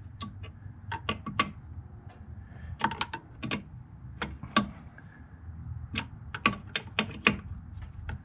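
Irregular sharp metal clicks of a wrench working the brake line flare nuts on a master cylinder as the lines are tightened, some clicks coming in quick pairs.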